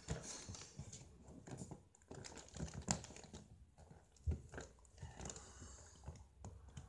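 Fingers picking and scratching at the seal of a cardboard box, with soft crinkling and irregular small clicks and ticks.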